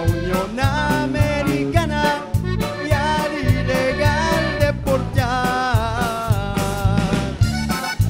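A live band playing a song: a drum kit keeping a steady beat under electric bass, guitars, keyboard and accordion, with a male lead singer singing into a microphone.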